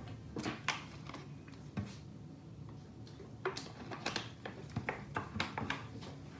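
Plastic water bottle being handled, giving an irregular scatter of light clicks and crackles that is thickest in the second half.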